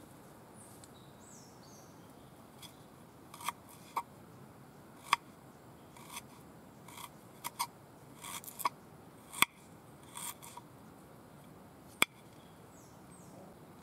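Small knife cutting ginger root on a wooden plate: irregular sharp taps and clicks as the blade slices through the root and knocks against the wood, a few of them much louder than the rest.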